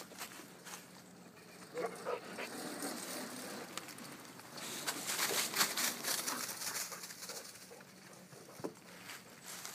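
A dog whimpering and panting, with a few short whines about two seconds in and a louder stretch of breathing and rustling in dry leaves in the middle.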